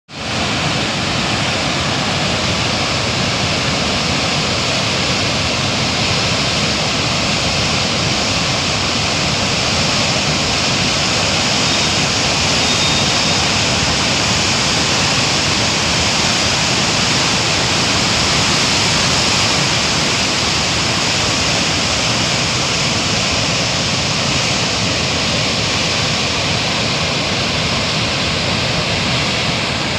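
Water rushing through the open gates of a river barrage in a steady, loud rush. It is a heavy flood release after heavy rain upstream.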